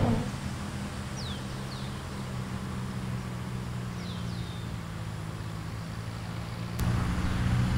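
Quiet outdoor golf-course ambience: a steady low hum, with a few short, falling bird whistles in two pairs, about a second in and again about four seconds in. Near the end a click, and the background hum gets louder.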